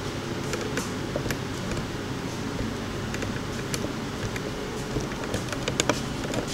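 Steady low hum of greenhouse fan machinery, holding a few low tones, with scattered light clicks and taps over it.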